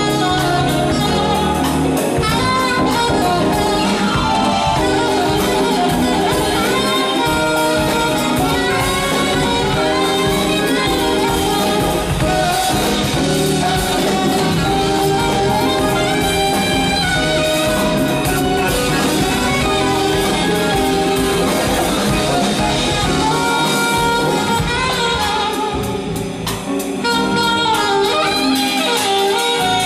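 Live jazz band playing, with a saxophone carrying the lead over a drum kit with steady cymbal work; the band thins out and drops a little in level briefly near the end.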